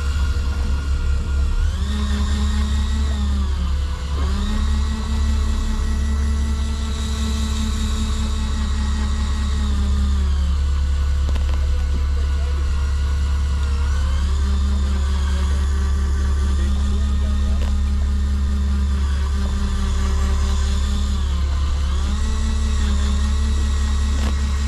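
A steady low engine drone with a higher motor hum above it. The hum steps up in pitch about two seconds in, drops back around ten seconds, and rises again around fifteen seconds.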